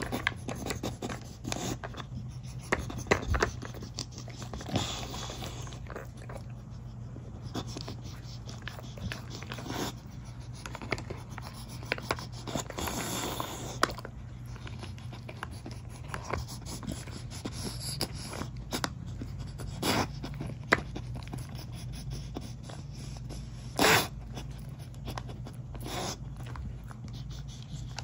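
Dog working a plastic puzzle feeder with its nose and mouth: scattered clicks and scrapes as the plastic covers and disc are pushed around, with one louder knock near the end. A steady low hum lies underneath.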